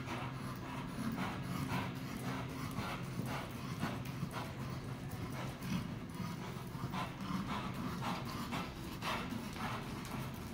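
A horse's hooves beating on sand arena footing at a trot or lope, about two to three soft beats a second, over a steady low hum.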